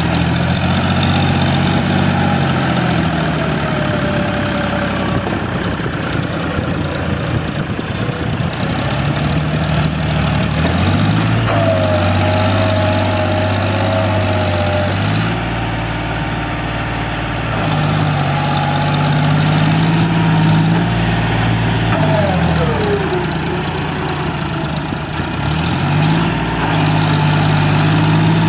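Diesel engines of a JCB 3DX backhoe loader and a tractor running close by. The engine note steps up and down several times as the backhoe digs and loads soil, and a higher whine slides in pitch now and then.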